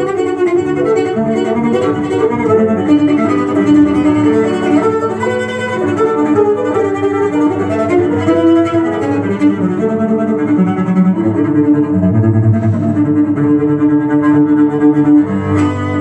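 Classical cello music playing from a vinyl record through loudspeakers in the room. The cello plays a melody over other pitched lines.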